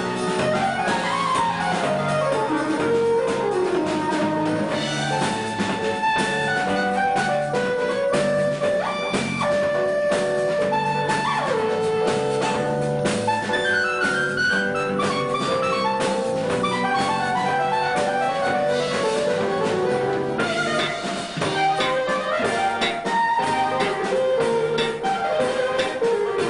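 Live band playing an instrumental on guitar, drums, bass and keyboards, with quick melody lines running up and down over a steady drum beat.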